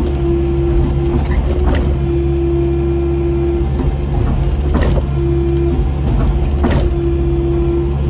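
Kubota KX080 excavator's diesel engine and hydraulics running steadily under load, heard from inside the cab, with a steady higher whine that keeps cutting in and out as the controls are worked. A few sharp cracks come about two, five and seven seconds in.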